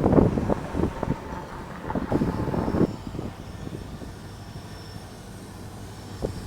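Passing train, its wheels clattering over the rails with irregular knocks, dropping to a quieter steady rumble about three seconds in.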